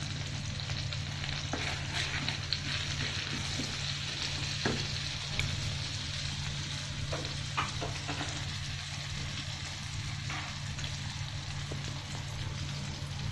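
Cumin seeds frying in bubbling melted butter in a nonstick wok: a steady sizzling hiss as the seeds temper, stirred with a wooden spoon that gives a few light scrapes and taps.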